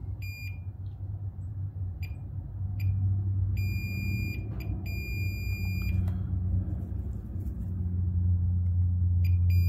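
A Fluke digital multimeter's continuity beeper chirps a few times, then gives two beeps of about a second each, as the probes touch the legs of an IRF740 MOSFET; the beeps signal a short across the transistor. Under the beeps a low steady hum runs throughout, growing louder.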